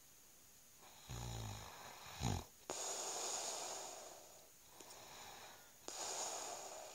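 A man snoring in his sleep. About a second in there is a short rasping snore, followed just after by a brief snort, and then two long airy breaths.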